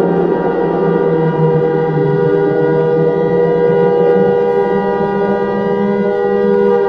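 Tornado warning siren sounding a long, steady wail of several tones together, a low, chord-like sound held at an almost constant pitch.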